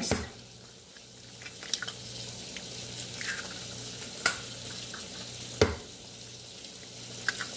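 Eggs cracked on the rim of a glass mixing bowl: a few short sharp taps and clicks, the loudest about four and five and a half seconds in. Under them runs a steady sizzle of bacon frying.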